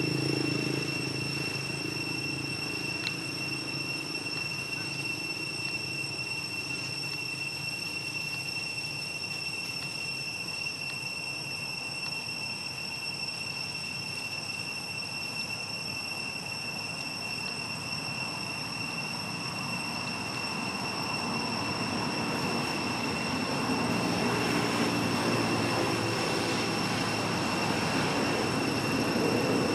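Steady outdoor background sound: a continuous thin high-pitched whine, with a low engine-like drone that fades away over the first few seconds and swells back over the last ten.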